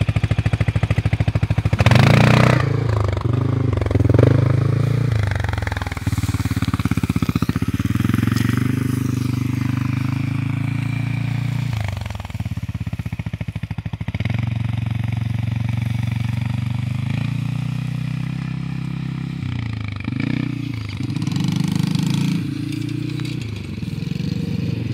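Quad bike (ATV) engines running close by: a steady engine drone with the revs rising and falling several times, a couple of seconds in, around the middle and again near the end.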